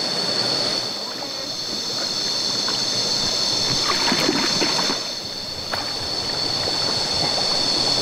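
Water sloshing and splashing around a kayak as it is manoeuvred in shallow water, with a few light knocks partway through. A steady high-pitched drone runs underneath.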